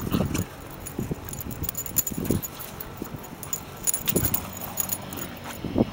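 Two soft-coated wheaten terrier puppies playing, with short scattered bursts of dog noise about once a second and a light jingling now and then.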